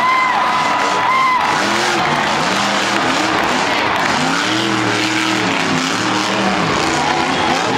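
Monster truck's supercharged V8 engine revving hard again and again, its pitch climbing and dropping in a run of throttle blips, over a steady wash of noise. A held high tone sounds at the start and stops about a second in.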